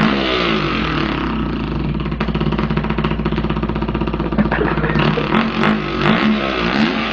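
A man imitating a dirt bike engine with his mouth, a buzzing vocal engine note. It revs up and down, holds a steady pitch through the middle, then revs and drops again near the end.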